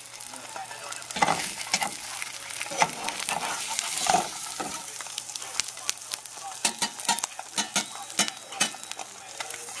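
An egg frying in butter in a nonstick pan: steady sizzling with many sharp crackles and pops. A spatula scrapes and taps the pan as it is worked under the egg.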